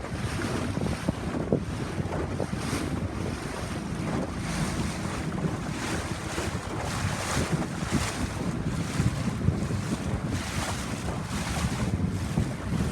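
Wind buffeting the microphone aboard a small boat underway, over the steady rush of water.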